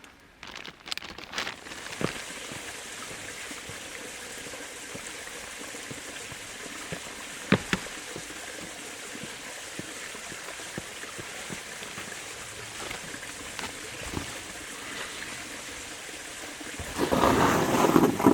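Shallow creek water flowing and trickling steadily over rock, with a few light clicks and a louder rush of noise near the end.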